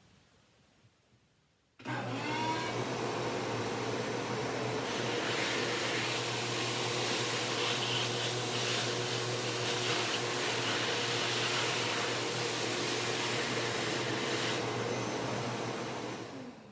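An electric motor in a workshop machine switches on about two seconds in, spins up, runs steadily for about fourteen seconds, then spins down near the end.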